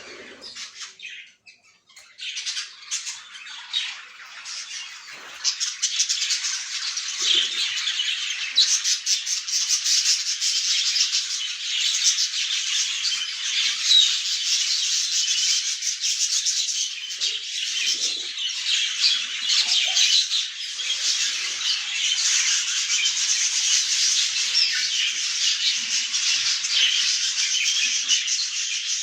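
English budgerigars chattering and squawking, a dense run of quick warbled calls and chirps. It builds over the first few seconds, then keeps up steadily.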